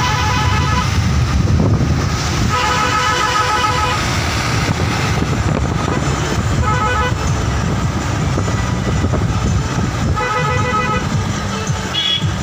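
Vehicle horn sounding in several separate honks, each between half a second and a second and a half long, over a steady low rumble of engine and road noise from the moving vehicle.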